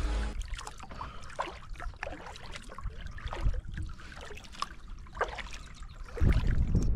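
Kayak paddle strokes through lake water, with irregular drips and small splashes off the blades. About six seconds in, wind starts buffeting the microphone with a loud low rush.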